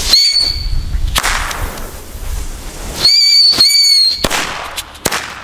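Nico Meteorschlag whistling firecrackers going off one after another. Each gives a short, steady, high-pitched whistle cut off by a sharp bang: one whistle and bang in the first second or so, then two more whistles in quick succession past three seconds, each ending in a bang, and a lighter crack near the end.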